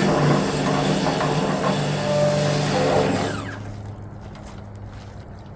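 Pressure washer running and spraying water into a rusty tractor gas tank to flush out loosened rust, with a motor hum under the rush of the spray; it cuts off a little past three seconds in, leaving a low hum.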